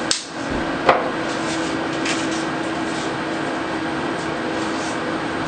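Steady background hiss with a low hum, and a single sharp click about a second in.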